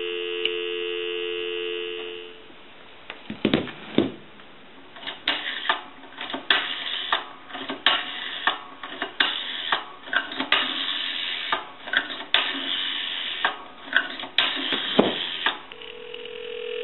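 Telephone dial tone for about two seconds, cut off as dialing begins, then a long run of clicks from a rotary dial being turned and spinning back on an old Navy ship telephone as a number is dialed. A single steady tone starts near the end.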